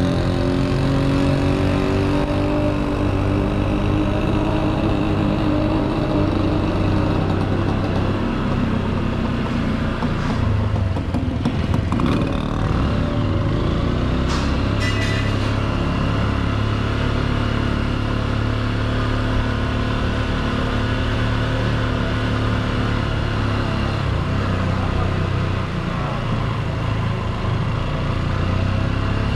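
Motorcycle engine running at low speed, heard from the rider's own bike, its pitch rising and falling with the throttle.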